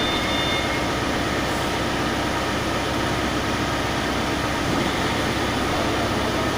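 A heavy engine running steadily with a constant noisy drone, typical of the machinery used to load a hollow-brick machine for shipping.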